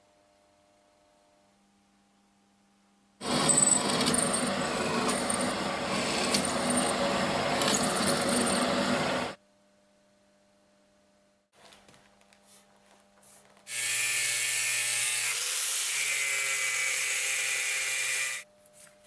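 A hole saw in a drill press cutting through steel plate for about six seconds, then, after a few light knocks, an angle grinder with a cutting disc slicing through the steel plate with a steady motor tone for about four seconds, stopping near the end.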